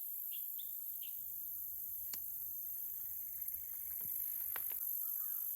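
Steady high-pitched chirring of insects, with a few faint clicks.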